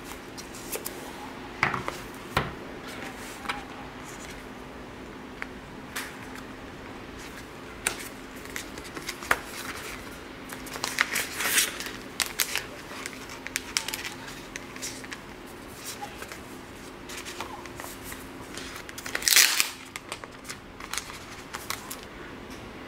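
Unboxing handling noise from Apple packaging: cardboard trays and a sheet of clear plastic film being lifted and handled, giving scattered clicks and crinkling rustles. The rustling is busiest about halfway through and loudest a little before the end. A faint steady hum runs underneath.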